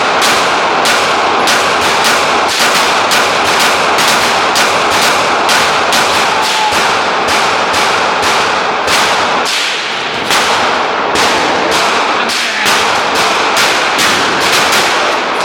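Rapid, repeated gunfire, about two to three loud shots a second in a steady run, with a short break about ten seconds in.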